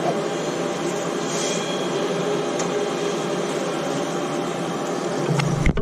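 Steady whirring hum of an electric locomotive-hauled passenger train standing at the platform, its fans and on-board equipment running, with faint high steady tones over it. The sound breaks off abruptly near the end.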